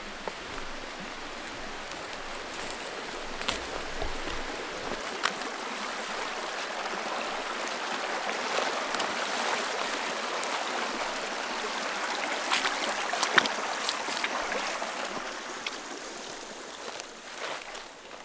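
Running creek water: a steady rush that grows louder toward the middle and fades near the end, with a few sharp ticks over it.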